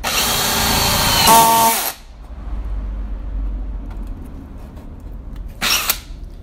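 Einhell 18V brushless cordless drill/driver boring into very hard angico wood for about two seconds, then a second short burst near the end. It is left on its screwdriver setting, so the torque clutch holds it back in the hardwood.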